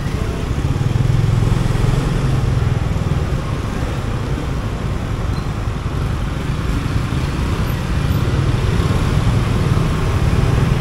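Motorcycle being ridden, its engine running steadily as a low hum under a constant rushing noise of road and traffic.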